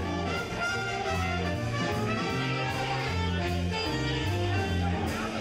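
Jazz band playing a dance tune: horns over a bass line that moves note by note, with cymbal strokes keeping an even beat.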